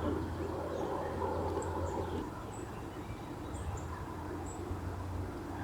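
Outdoor ambience with brief high bird chirps scattered through it, over a low steady hum.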